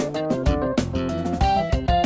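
Background music: plucked guitar notes in a steady rhythm.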